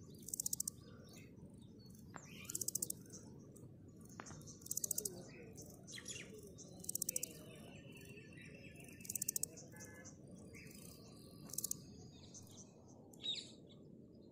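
A grasshopper stridulating: six short buzzy rasps, each a quick train of fine clicks, repeated about every two seconds. Birds chirp faintly in the background.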